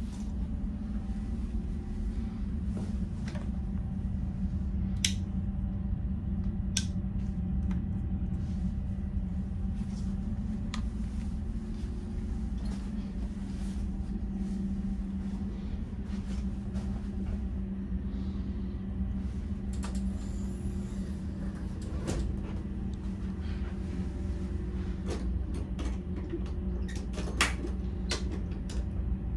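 Steady low hum of the ferry's machinery heard inside a small cabin. Scattered light clicks and knocks from handling the bunk fittings and a cabinet latch, the sharpest about five seconds in and near the end.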